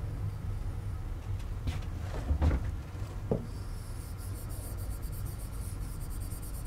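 A stylus on an interactive whiteboard: a few soft knocks against the board, then, from about four seconds in, a fast, even scratching as the stylus is rubbed quickly back and forth over the screen to erase.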